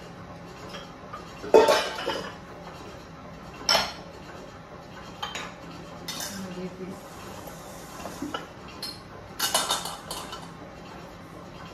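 Stainless steel mixing bowls and a metal sieve clanking and clinking as they are handled and set down on a stone countertop: several separate sharp knocks, the loudest about a second and a half in.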